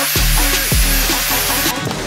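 Angle grinder cutting into a steel circular saw blade: a dense high grinding hiss with a thin steady whine that cuts off near the end. Background music with a heavy bass beat plays under it.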